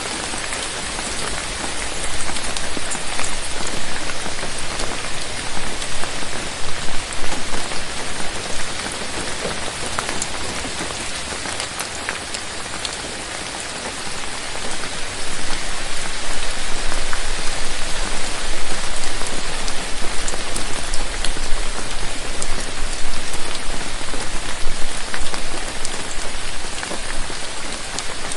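Steady rain falling on a surface, with individual drops ticking through the patter; it grows heavier for a few seconds early on, eases around the middle, then grows heavier again from about halfway.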